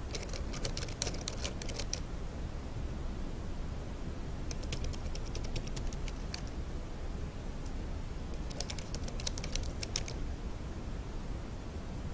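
Typing on a computer keyboard: three short runs of quick keystrokes, each a second or two long, over a steady low background noise.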